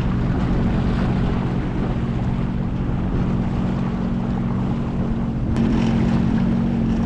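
Boat motor running with a steady low hum at trolling speed, with wind buffeting the microphone and water rushing past the hull. About five and a half seconds in it switches abruptly to a Sea-Doo jet ski's engine running over the water.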